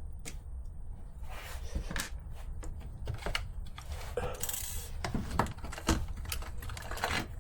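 Small plastic and metal RC car suspension parts clicking and clattering as they are handled and fitted, with a brief rustle about halfway through.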